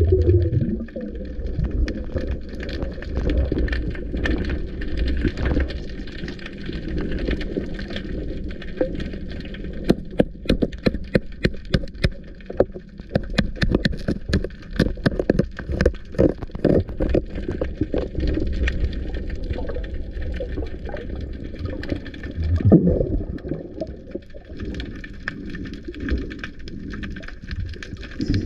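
Underwater sound heard through a diving camera's housing: a low water rumble, with a dense run of sharp clicks and knocks in the middle and a louder surge of water noise near the end.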